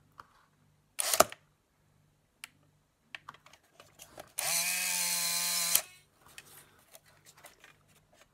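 A sharp clack about a second in. Then, about four and a half seconds in, the Polaroid SX-70's film-drive motor and gear train run for about a second and a half and stop on their own, where before the repair of the broken drive spring coupling the motor ran on without stopping. Light clicks come from the camera's parts being handled.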